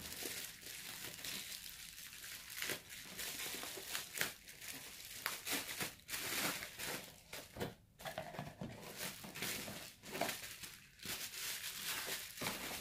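Plastic bubble wrap crinkling and rustling as it is handled and pulled off a camera, an irregular run of crackles with brief pauses.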